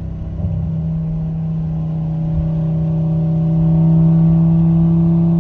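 Audi RS3's turbocharged 2.5-litre five-cylinder engine, heard from inside the cabin through an AWE Track Edition exhaust, pulling at a nearly steady pitch and growing louder about halfway through.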